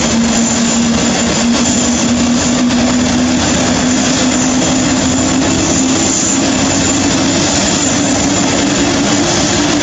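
Airbus A380 jet engines running loud and steady, with an engine whine that steps up in pitch about a third of the way in and again near the end.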